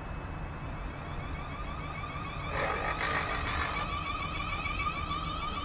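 South West Trains Class 450 electric multiple unit standing at the platform before departure: a short burst of hiss about two and a half seconds in, then a steady pulsing high tone with a rising whine repeating above it.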